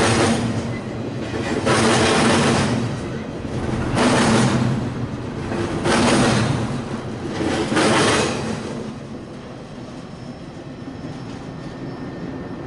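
Double-stack intermodal freight train's well cars rolling past, with surges of wheel and rail noise about every two seconds. The noise dies down to a fading rumble once the last car has gone by, about eight seconds in.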